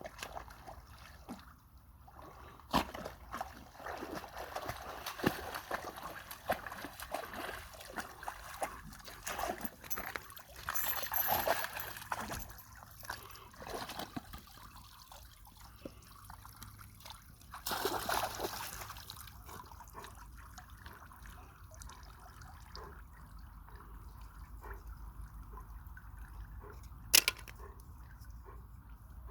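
Lake water sloshing and splashing as a dog bathes, in irregular bursts that are loudest about 11 and 18 seconds in and ease off after about 20 seconds, with one sharp knock near the end.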